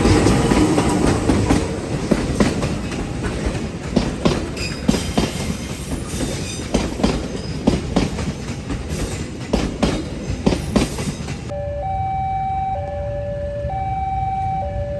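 A train running past, its wheels clattering in rapid clicks over the rail joints. About eleven seconds in it cuts off suddenly, and an electronic two-tone signal starts, alternating between a high and a low note about once a second.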